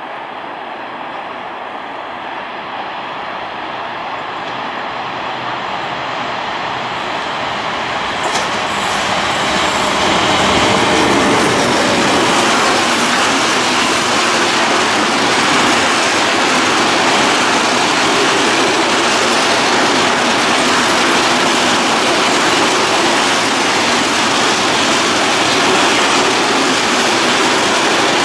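Freight train passing: an ÖBB Class 1116 Taurus electric locomotive grows louder over the first ten seconds as it nears and goes by, then a long string of Eaos open freight wagons rolls past with a steady, even noise of wheels running on the rails.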